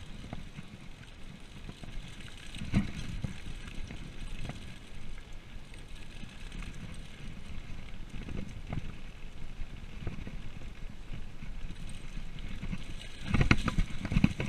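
Mountain bike rolling down a rough gravel road: steady rumble and rattle of tyres and frame over the stones, with scattered knocks over bumps and a louder cluster of jolts near the end.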